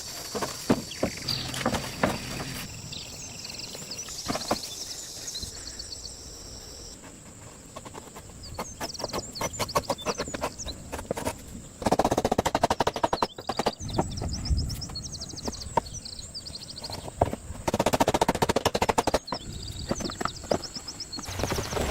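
Work noise of rapid, sharp tapping and knocking, coming in dense bursts twice in the second half, with birds chirping throughout.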